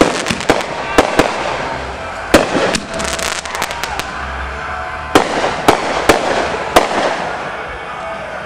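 Consumer fireworks going off: a string of sharp bangs, about a dozen, with a quick run of crackling pops around three seconds in.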